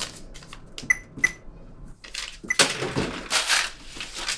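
Electronic shop till beeping twice as its keys are pressed. About a second later comes a click and a loud, rustling clatter lasting about a second.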